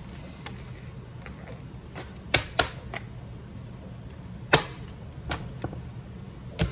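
A few scattered sharp clicks and taps, about six of them, the loudest roughly halfway through, over a steady low hum.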